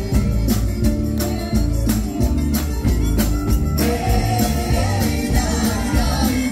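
Live Romani band music with violin, guitar, drum kit and keyboard and a fast, even drum beat; singing comes in about four seconds in.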